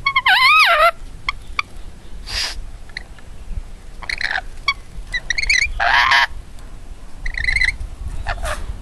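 Rainbow lorikeet calling: a loud wavering call in the first second, then a string of short chattering calls and a harsh screech about six seconds in.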